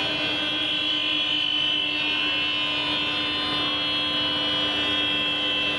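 Steady mechanical drone holding several fixed tones, low and high, without a break or change in pitch.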